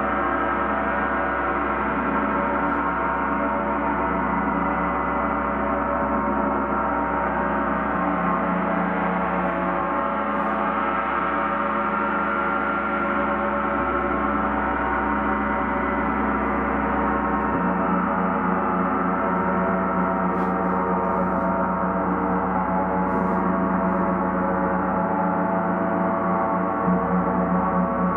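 Gong ringing in a continuous dense wash of many overlapping sustained tones, with no separate strikes standing out; the lower tones shift about two-thirds of the way through.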